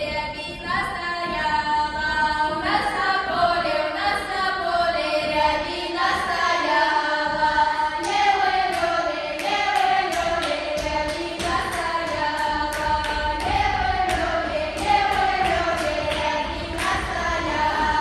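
A group of high female voices singing a Russian folk dance song (plyasovaya) in parts. From about seven seconds in, a steady beat of sharp rhythmic strokes joins the singing.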